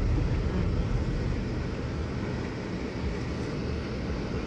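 Steady low rumble of a car's road and engine noise, heard from inside the cabin while the car drives slowly.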